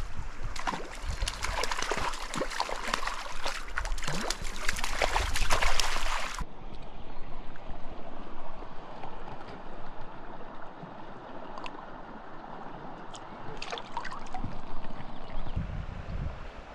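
Water splashing hard and fast as a hooked brown trout thrashes in a shallow spring creek. The splashing cuts off abruptly about six seconds in, leaving the steady burble of the creek with a few light splashes later on.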